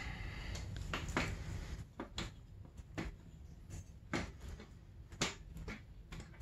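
Light knocks and clicks, roughly one a second, as metal parts are handled while a dirt-bike engine is fitted into its frame, with a scraping rustle in the first second or two.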